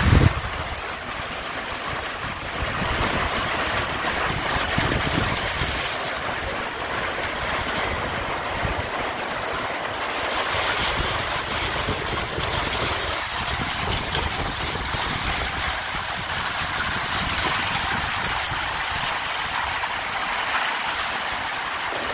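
Steady hiss of light rain on a corrugated metal roof overhead, with gusts of wind buffeting the microphone; a short loud gust hits the microphone right at the start.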